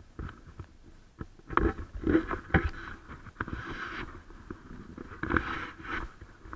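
Footsteps knocking on wooden jetty planks, an uneven series of dull thuds, with patches of hiss between the steps.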